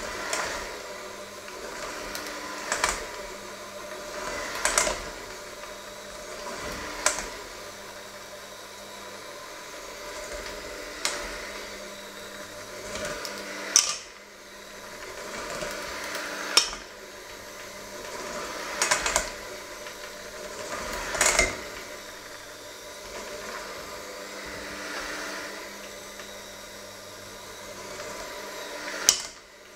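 Electric hand mixer running steadily, its beaters working a stiff flour mixture in a stainless-steel bowl and knocking against the metal with a sharp clatter every two to three seconds.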